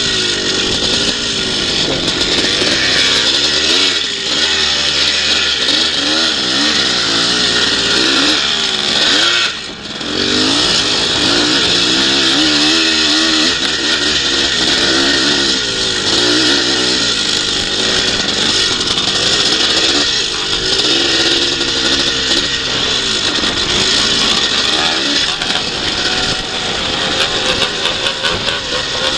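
Yamaha two-stroke twinshock motocross bike engine recorded on board, revving up and down hard under race riding, with a short throttle-off about ten seconds in. Wind noise rushes over the microphone.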